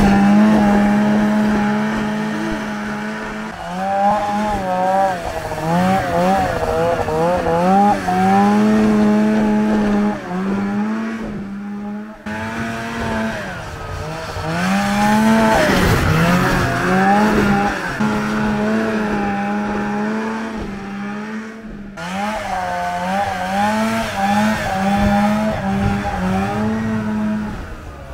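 Arctic Cat 370 snowmobile's small two-stroke engine revving up and down as the sled ploughs through deep snow, its pitch climbing and dropping over and over. The sound breaks off and restarts twice as the riding clips are cut together.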